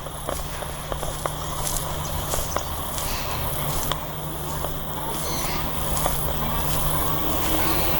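Outdoor park ambience while walking: scattered footsteps and clicks over a steady high drone of insects and a low hum of distant traffic.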